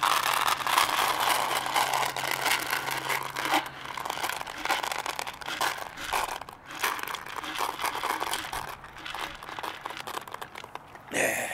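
Dry cat kibble pouring out of a canister onto a plate, a dense rattle of small pellets, heaviest in the first few seconds and then thinning to a scattered patter.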